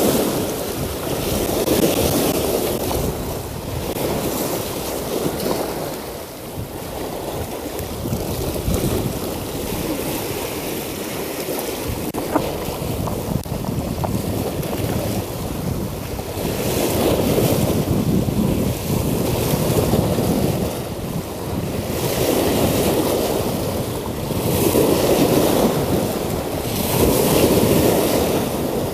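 Sea waves surging up and washing over the rocks of a stone seawall, swelling and falling away every few seconds, with a calmer stretch in the middle. Wind buffets the microphone.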